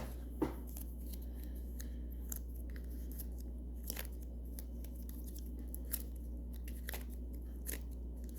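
Irregular small clicks and crackles of sticky, stretchy sensory dough being pulled from its tub and squished by hand, over a steady low hum.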